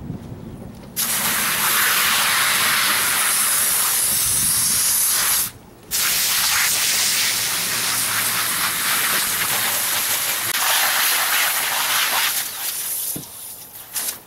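Water spraying hard from a pistol-grip garden hose nozzle onto a soapy clear vinyl (isinglass) panel, rinsing the soap off. It starts about a second in, stops briefly midway, then runs on and tails off near the end.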